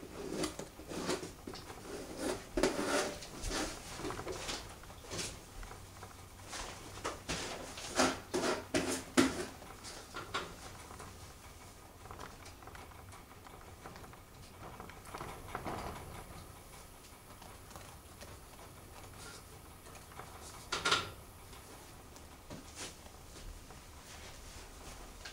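A jar being handled: irregular clicks, taps and rattles, busiest in two stretches in the first ten seconds, then quieter, with one last short cluster about twenty-one seconds in.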